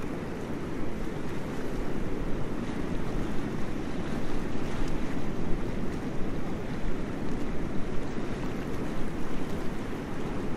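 Rushing river water: a steady, deep wash of white water.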